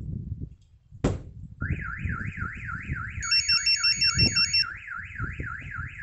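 A thump on the Mercedes Sprinter van body about a second in, then the newly fitted Prestige X2 alarm siren sets off, warbling rapidly up and down: the shock sensor has been triggered. Partway through, the alarm's two-way pager joins in with a quick alternating beep melody.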